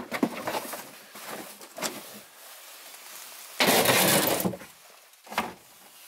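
Clear plastic storage bin being handled and pushed onto a refrigerator shelf: a few light knocks and bumps, then a loud scraping clatter of about a second just past halfway, and one more knock near the end.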